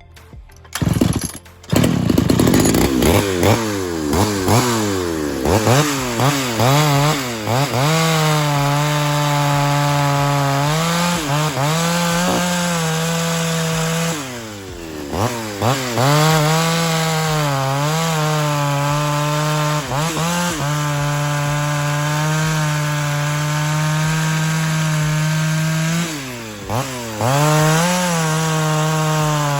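Ported Pioneer 3270 two-stroke chainsaw starting about a second in, revved up and let down several times, then held at high revs for long stretches, sagging briefly a few times in between, as it cuts through wood.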